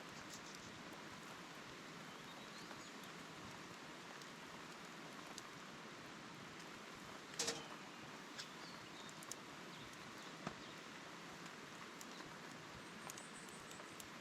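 Steady, faint hiss of rain, with a few scattered sharp pops and ticks; the loudest is a quick double pop about halfway through.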